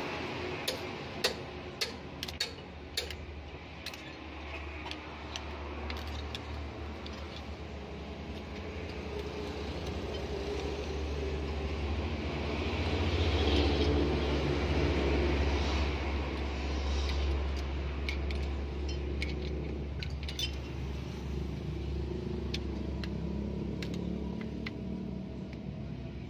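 Metal hand tools clicking and clinking against a diesel engine's rocker arms while the valve clearances are set with a ring spanner, screwdriver and feeler gauge. The clicks come thickest in the first few seconds, over a steady low rumble that swells in the middle.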